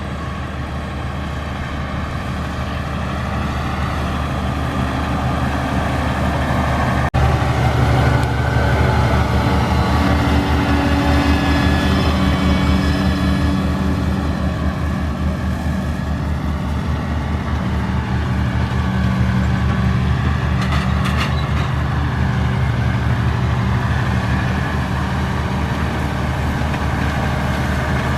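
Heavy vehicle engine running steadily, with a higher whine over it for several seconds after an abrupt break about seven seconds in.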